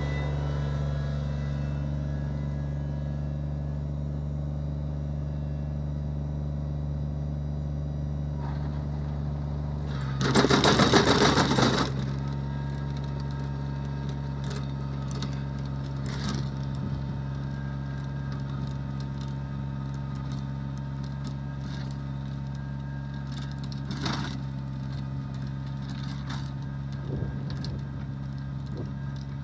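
Kubota BX2360 compact tractor's three-cylinder diesel running at a steady speed while pulling a PTO-driven rear rotary tiller through grass sod, fading slowly as it moves away. About ten seconds in there is a loud two-second burst of clatter, and a few short knocks follow later.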